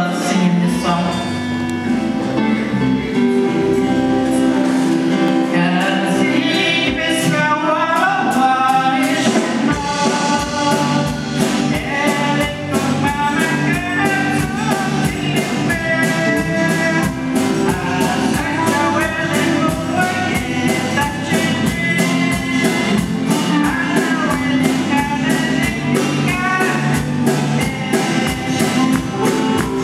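A woman singing a gospel song into a microphone, accompanied by strummed acoustic guitar and electric guitar; the accompaniment picks up a steady rhythm about ten seconds in.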